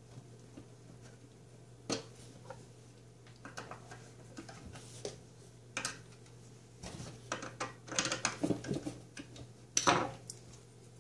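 Scattered clicks and plastic rattling as a corrugated drain hose is worked onto a garbage disposal's inlet and its hose clamp is tightened with a screwdriver, busiest in the second half. Near the end a sharp clack as the screwdriver is set down on a stone countertop.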